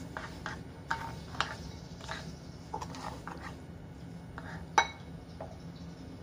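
A spoon stirring sugar into char siu sauce in a bowl, clinking and tapping against the bowl's side at irregular moments, with one sharper clink about three quarters of the way through.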